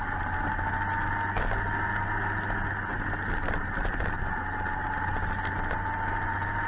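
Suzuki GSX-R 1000 motorcycle under way: steady wind and engine noise with a faint steady whine, broken by scattered light ticks.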